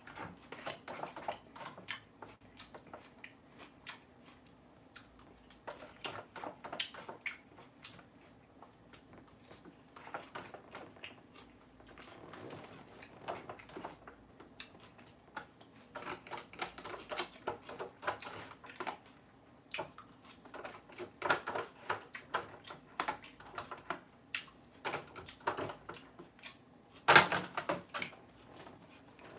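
Close-up crunchy chewing of crisp salad lettuce, in bursts of quick crackling crunches separated by short pauses, with one louder crunch near the end.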